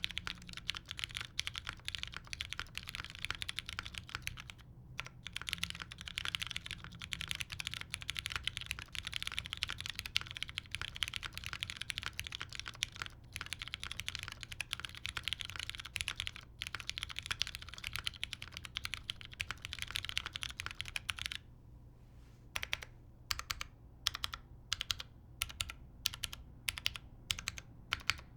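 Fast typing on an RAE Creations Adamas mechanical keyboard with lubed Cherry MX Brown switches, an aluminium plate and GMK keycaps. A steady stream of clacks is broken by a few short pauses. About three-quarters of the way through it slows to separate key presses, two or three a second.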